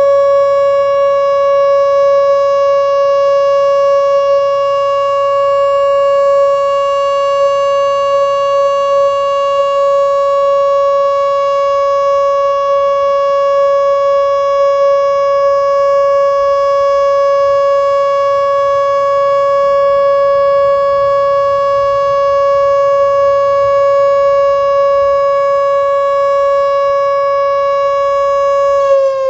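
Whelen WPS-4004 Vortex electronic outdoor warning siren sounding one loud, steady, unwavering tone, with none of the rise and fall that a turning horn gives. The horn has failed and stopped rotating. Right at the end the pitch begins to slide down as the tone winds down.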